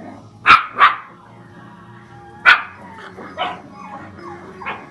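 Dog barking in play: short sharp barks, two in quick succession about half a second in, a loud single one about two and a half seconds in, then two softer ones near the end.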